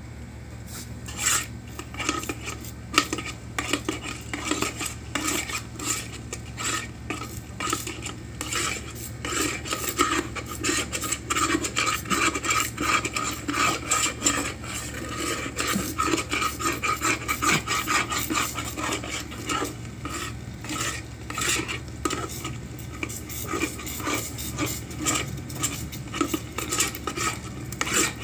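A wooden spatula stirring and scraping a thick sardine-and-egg mixture around an electric cooking pot, in quick, irregular strokes that start about a second in.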